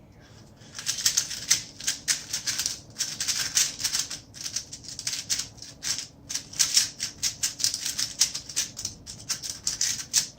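A 3x3 Rubik's speedcube being turned fast, a dense run of plastic clicks and rattles that starts about half a second in: the execution of a blindfolded solve, after memorization. A loud thump comes at the very end.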